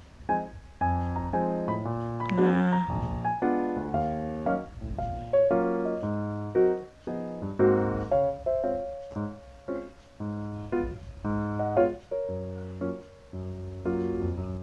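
Background music: a light piano tune, chords struck in a steady rhythm over a bass line.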